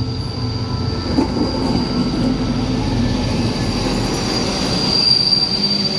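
Passenger train braking to a stop, its brakes and wheels giving a steady high squeal that grows loudest near the end, over the low rumble of the train rolling through.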